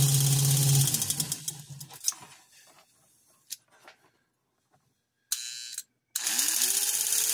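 Lionel postwar 671 steam locomotive's electric motor running on test power from alligator clips, with a strong hum and a whine that rises as it spins up. Power cuts about a second in and the motor winds down. After a short buzz in the middle, it starts and spins up again about six seconds in. The motor running shows the new wiring connections work.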